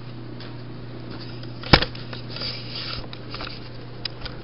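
A steady low hum runs throughout. A little under two seconds in comes a single sharp knock, then scratchy rustling and a few small clicks as the camera is picked up and moved.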